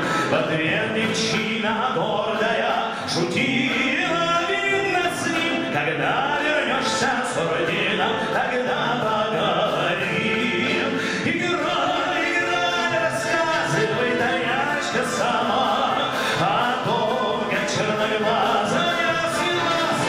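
A male vocalist singing a song into a microphone, accompanied by a military brass and wind band.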